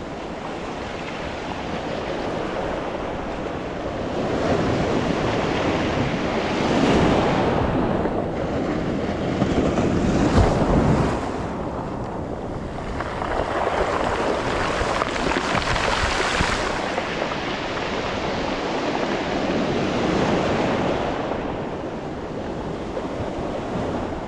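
Ocean surf breaking and washing up the beach, rising and falling in swells every few seconds.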